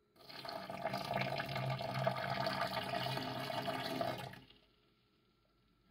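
Water pouring in a steady stream for about four seconds, then stopping.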